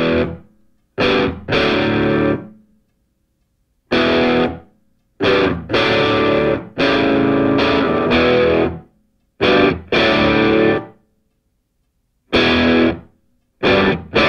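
Background rock music: distorted electric guitar chords in loud stabs, each starting suddenly and breaking off into complete silence, some short and some held for a second or two.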